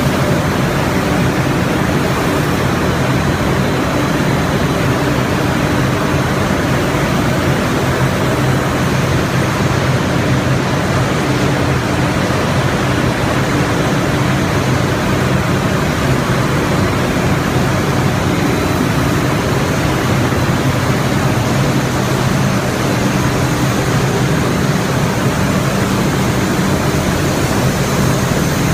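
Loud, constant noise of a cotton spunlace production line and its air-handling fans and ductwork running: an even rush with a steady low hum underneath.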